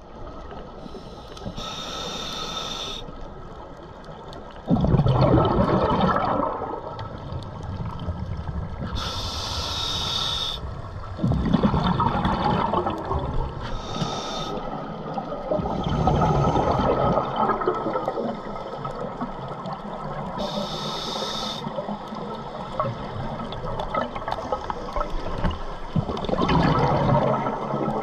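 Scuba diver breathing through a regulator underwater, about four breaths: a short hiss on each inhale, then a loud rush of exhaled bubbles a few seconds later. A faint steady tone runs underneath.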